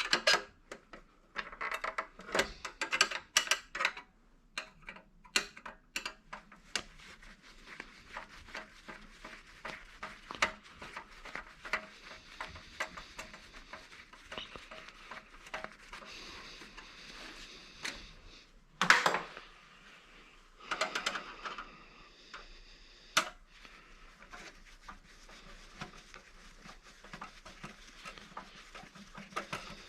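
Scattered light metallic clicks and clinks of hand tools and small scrap parts being handled, with one short louder noise about two-thirds of the way in.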